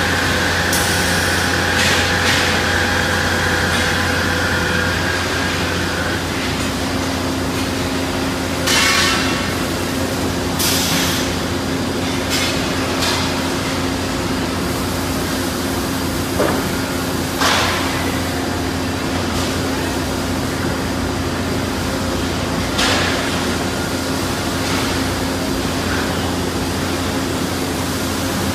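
Davi CNC folding machine running: a steady low hum, with a higher whine that gives way about five seconds in to a lower steady tone. About ten short clanks and hissing bursts are scattered through.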